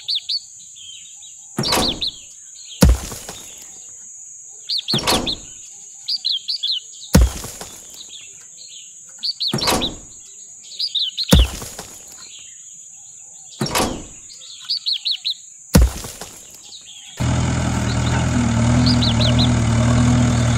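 Small concrete beams knocking against a plastic toy truck bed as they are handled one at a time, about eight sharp knocks, with birds chirping in bursts between them and a steady high hiss behind. Near the end a steady low engine-idle hum starts.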